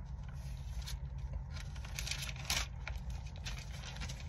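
Pages of a Bible being flipped and rustled while a verse is looked up, in short scraping bursts, over a steady low hum.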